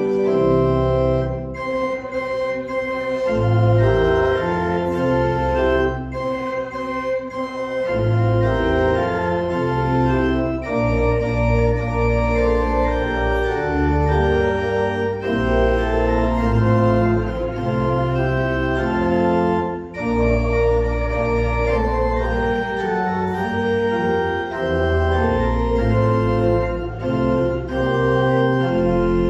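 Church organ playing music: chords held and changing every second or two, with low bass notes moving underneath.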